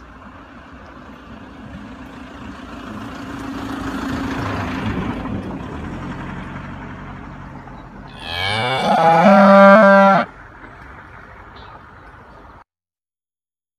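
A cow's moo put through autotune: about eight seconds in it slides up in pitch, then holds on stepped, flat notes for about two seconds, the loudest sound here. Before it, a rushing background noise swells and fades, and the sound cuts off into silence near the end.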